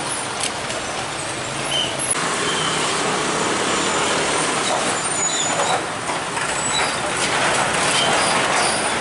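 Heavy cargo trucks and other traffic passing at close range: a steady wash of engine and tyre noise that grows louder about two seconds in.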